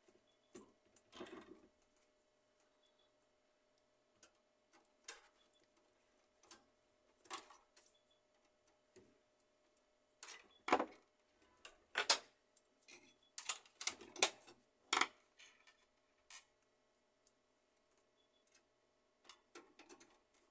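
Scattered clicks and knocks of plastic and metal parts of an HP LaserJet 1300 laser printer being handled and fitted, with a screwdriver turning a screw in the printer's metal side frame. A quick run of sharper, louder clicks comes from about ten to fifteen seconds in.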